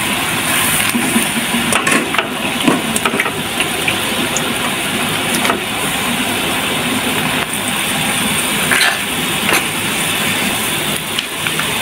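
Spiced broth sizzling and bubbling in a pan as boiled intestines are stirred through it with a metal spoon, with a few sharp clicks of the spoon against the pan.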